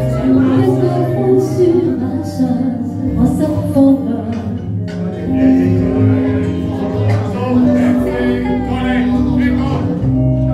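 Karaoke music: a pop song's backing track playing steadily, with a woman's singing voice over it.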